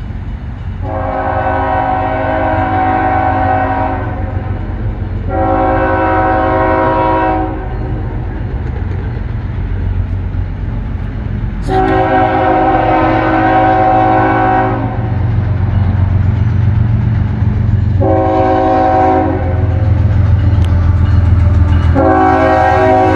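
The multi-chime air horn of a CSX diesel freight locomotive sounds five blasts for a grade crossing: long, shorter, long, a short one, then a long one that is still going at the end. Under the horn the locomotives' diesel engines rumble and grow louder as the train approaches, starting about two-thirds of the way through.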